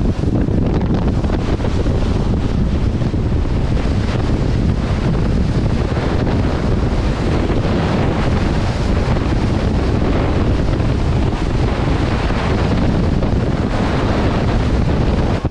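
Heavy wind buffeting the microphone of a camera mounted on a speeding boat's hull, mixed with water rushing and spraying off the hull, steady and loud throughout.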